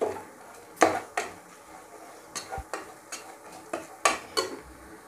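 Stainless-steel slotted spoon stirring spice powder into fried onions in a pressure cooker, scraping and clinking against the metal pot in a series of separate strokes.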